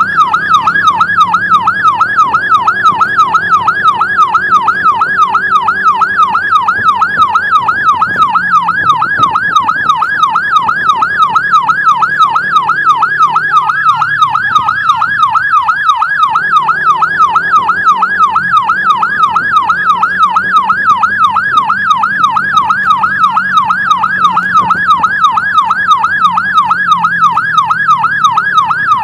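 Emergency-vehicle siren on a fast yelp, its pitch sweeping up and down about three times a second, over a low steady hum.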